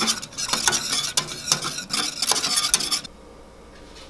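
Wire whisk beating a thin cream sauce in a stainless steel saucepan, with quick metal clinks and scraping against the pan that stop about three seconds in.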